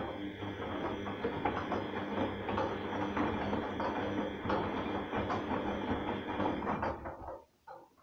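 Arçelik front-loading washing machine tumbling its drum during a 40° synthetics wash: the motor hums steadily while the laundry and soapy water slosh and splash inside. The run starts abruptly and stops about seven seconds in, as the drum pauses between tumbles.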